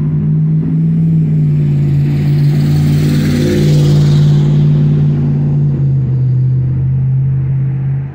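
Heavy diesel engine of a tracked demolition machine running with a loud, steady hum. A swell of rushing noise rises and fades away about four and a half seconds in.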